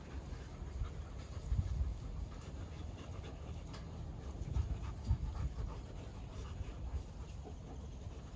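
Wolfdogs panting after running and chasing each other, with a few low thumps, the loudest about one and a half and five seconds in.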